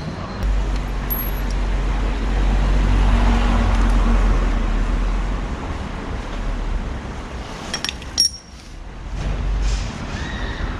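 Steady low rumble of a motor vehicle engine running in the street, stopping near the end. About eight seconds in come a few sharp metallic clinks from a bicycle chain being worked on with a hand tool.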